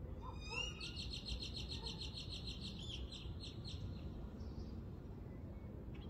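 A songbird singing: a few quick rising notes, then a fast high trill of about two seconds that slows into separate notes and stops about four seconds in. A steady low rumble lies beneath.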